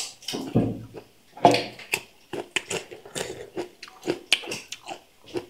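Close-up crunchy biting and chewing of raw cucumber, a run of short wet crunches with a loud bite about a second and a half in.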